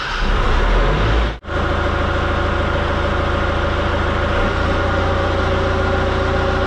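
Excavator's diesel engine running at a steady speed, with a brief break about a second and a half in.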